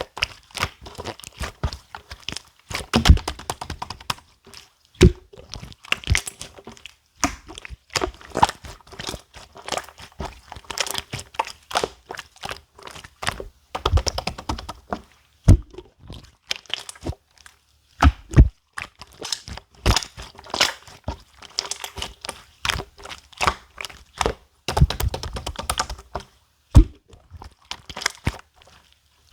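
Clear slime being pressed, poked and stretched by hand, giving a dense, irregular run of sticky popping clicks and crackles, with a handful of louder, deeper pops.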